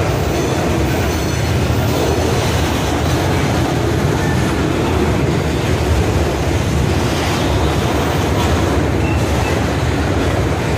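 Covered hopper cars of a freight train rolling past close by: steel wheels on the rails make a steady, loud rolling noise.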